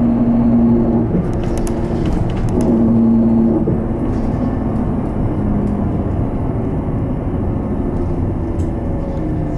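Inside an Isuzu Erga Hybrid diesel-electric route bus while it runs: a steady low drone of engine and road noise. A humming tone comes and goes twice in the first few seconds, with a fainter one near the end.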